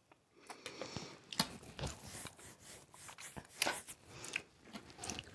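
Close-up chewing of pasta in Alfredo sauce: irregular soft wet mouth clicks and smacks, with a couple of sharper clicks about one and a half and three and a half seconds in.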